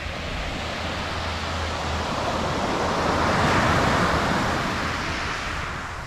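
Small sea waves breaking and washing up a sandy, pebbly shore. The surf swells to its loudest about three and a half seconds in, then eases off.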